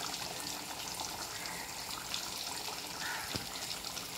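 Thick Indian mackerel curry bubbling at a simmer in a clay pot, a steady hiss with many small pops, while a spoon works through it. There is a light knock about three seconds in.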